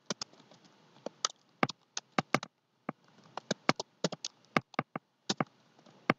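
Computer keyboard keystrokes as a line of code is typed: about twenty irregular clicks with short pauses between them.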